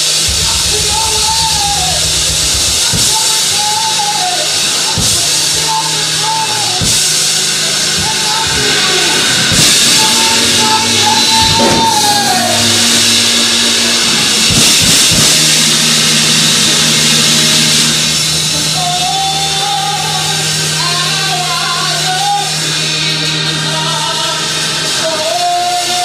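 Live gospel worship music: a lead singer's voice through a microphone over a drum kit and keyboard, with a held low note underneath and occasional drum hits.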